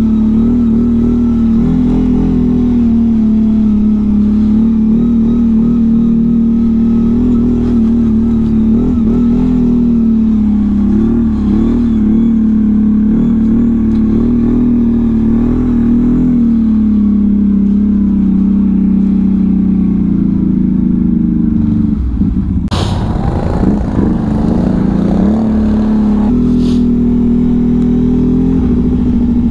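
Can-Am Outlander 1000 ATV on Apache 360 LT rubber tracks, its V-twin engine running under steady throttle through snow with small rises and falls in pitch. About 22 seconds in the engine note dips and a couple of sharp knocks sound before it settles back to the steady run.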